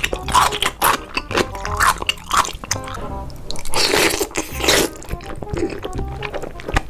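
Close-miked crunchy bites and chewing of pickled radish, then a long slurp of spicy stir-fried noodles about four seconds in, with background music underneath.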